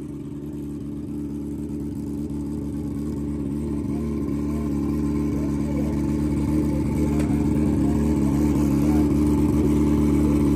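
Twin-turbo Suzuki GSX-R1000 drag bike's engine idling at a steady pitch, growing gradually louder.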